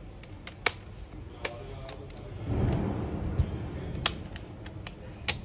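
HP Pavilion 14 laptop's plastic screen bezel being pressed back onto the display, its clips snapping into place with several sharp clicks. There is a stretch of rubbing and handling noise about halfway through.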